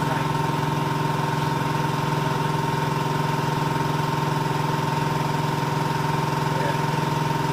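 Old workshop air compressor running steadily, a constant hum with a high whine over it. It is slowly building pressure and struggling to get any up.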